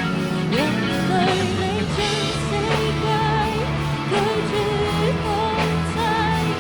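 A band's pop-rock song playing: a sung melody with vibrato over guitar, bass and drums.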